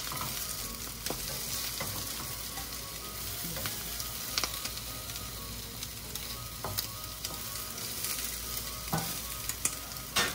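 French toast frying in butter in a pan, a steady sizzle, with a few light clicks scattered through it.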